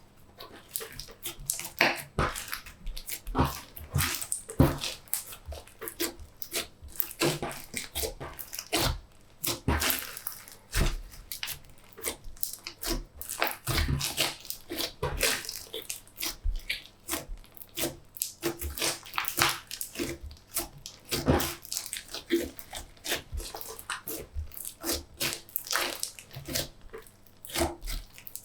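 Clear slime mixed with make-up and clay being squished and kneaded by hand, giving a constant run of irregular wet clicks, crackles and pops as air pockets burst.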